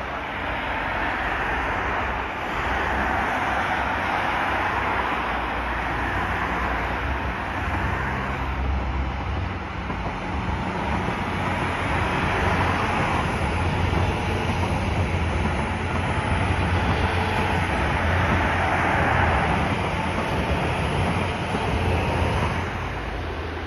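A long passenger train running past with a steady low engine drone and rumble of wheels on the rails, mixed with road traffic. It swells twice as the train passes.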